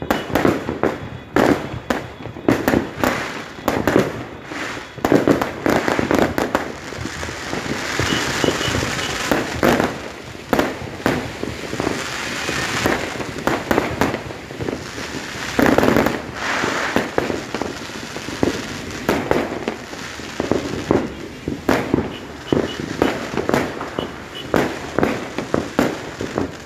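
Fireworks going off without a break: many sharp overlapping bangs, with stretches of dense crackling between them.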